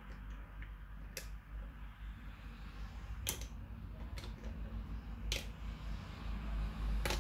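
About five sharp clicks and knocks, a second or two apart, over a steady low hum.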